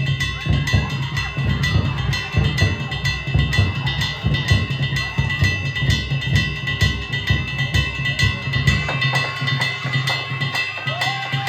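Danjiri festival music (hayashi): taiko drums beaten in a fast, driving rhythm, with metal gongs ringing over them. About nine seconds in, the deepest drum beats stop while the faster strokes play on.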